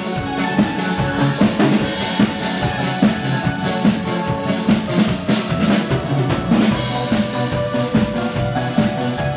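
A live Roma pop band playing: a steady drum-kit beat with electric guitar, bass guitar and keyboards.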